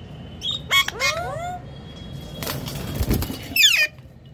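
Pet parrot calling in short squawks and chirps, with several quick whistled notes sliding up in pitch in the first second and a half. A brief rustling noise comes in the middle, then a sharp squawk falling in pitch near the end.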